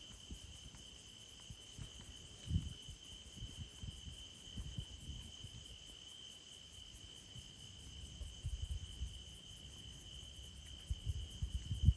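Insects calling steadily: one constant high-pitched tone with a faster, evenly pulsing chirp above it. Low thumps and rumbling sit underneath, the loudest about two and a half seconds in and again near the end.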